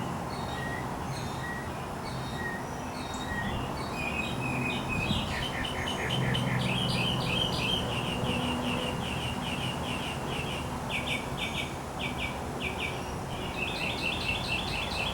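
Songbirds singing: at first a slow series of single high chirps, then from about five seconds in fast, chattering trills from more than one bird, over a low steady background rumble.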